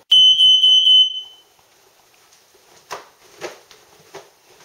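Smoke alarm sounding one loud, high-pitched beep lasting about a second, set off by cooking smoke. A few soft thuds follow.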